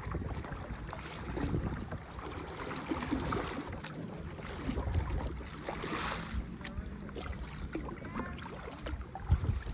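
Kayak on moving river water: water washing against the hull, wind rumbling on the microphone, and small knocks of the paddle against the deck. A brief swish of water comes about six seconds in.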